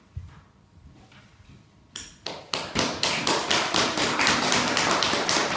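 A soft thud, then about two seconds in a few separate claps that quickly build into steady applause from a small audience.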